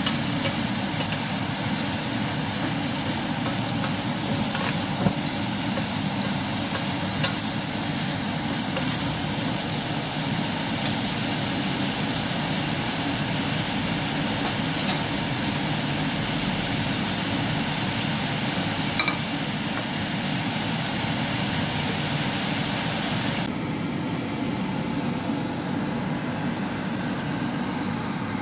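Chicken and asparagus sizzling in a frying pan as they are stir-fried, with a few sharp clicks of the spatula against the pan, over a steady low hum. About four seconds before the end the sizzle drops away, leaving the hum.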